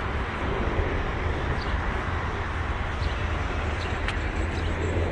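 Steady outdoor background noise with a strong low rumble, and a few faint, short, high chirps.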